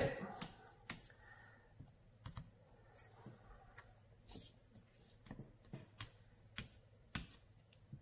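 Faint handling sounds: an unmounted rubber stamp and sheets of paper being pressed, lifted and moved about on a table, with scattered soft clicks and light paper rustles.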